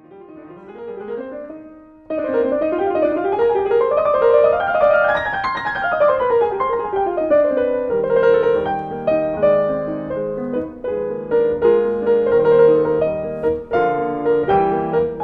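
Grand piano playing runs of notes in a piano concerto, fading in and then much louder from about two seconds in. The runs climb and then fall, and from about eight seconds in the piano plays over held orchestral chords.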